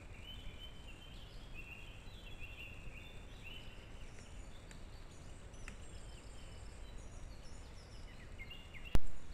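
Small birds chirping repeatedly, short high calls one after another over a steady low background rumble. A single sharp click near the end is the loudest sound.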